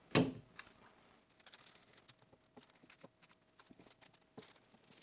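Workbench handling noises: light clicks, taps and paper rustles as wooden frame pieces, plastic clamps and baking-paper squares are moved about and set down. A short louder sound comes at the very start, and a slightly firmer tap comes near the end.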